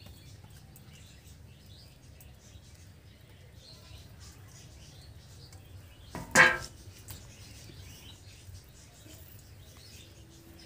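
Quiet background with faint bird chirps, and one short, loud bird call about six seconds in.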